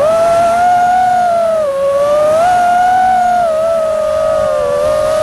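FPV quadcopter's four brushless motors (iFlight Xing Pro 1800kv) and props whining in flight, one steady tone that slides up and down with the throttle. It dips briefly about a second and a half in and again near the end.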